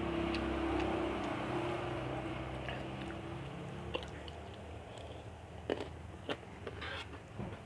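Chewing and eating noises, with spoons and forks clicking sharply against metal skillets a few times in the second half. A steady engine hum from a passing vehicle fades out over the first few seconds.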